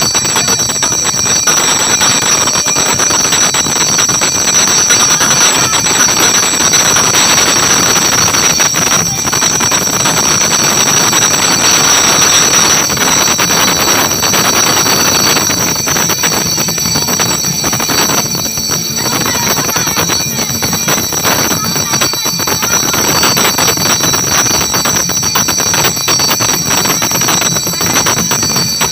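Hand bells ringing rapidly without pause in a loud, unbroken din of ritual percussion, with the sound of a pressing crowd underneath.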